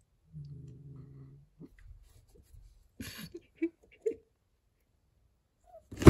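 A cat pawing under a closed door at another cat, with faint scuffs and clicks and a brief low steady vocal sound about half a second in. Near the end comes a sudden loud burst as the cat startles and freaks out.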